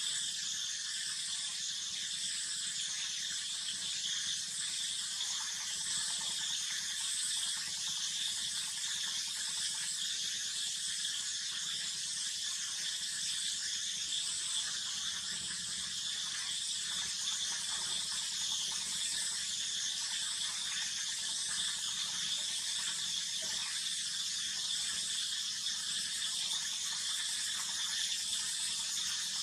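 Steady high-pitched insect chorus, its buzz swelling and fading in a slow regular wave.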